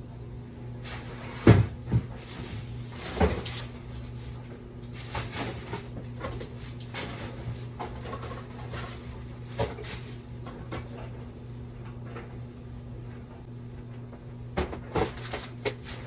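Jars, bottles and containers knocking and clattering against refrigerator shelves and door bins as they are handled and taken out, with rustling between the knocks. The sharpest knock comes about a second and a half in, and a cluster of knocks comes near the end. A steady low hum runs underneath.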